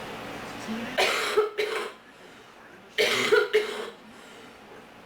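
A person coughing in two short fits about two seconds apart, each a quick run of three or four coughs, the cough of someone who has been sick for a long time.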